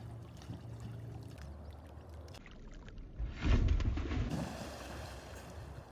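A person jumping into a lake: one loud splash about three and a half seconds in, with water churning that fades over the next second.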